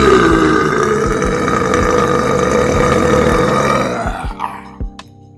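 A man's single long, loud burp lasting about four seconds, holding a steady pitch before fading out. Music with a beat comes in near the end.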